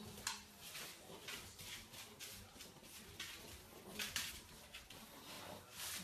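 Faint, irregular scratching and pattering of dog claws on a hardwood floor as two French bulldogs scuffle and pull at a rope toy in tug-of-war.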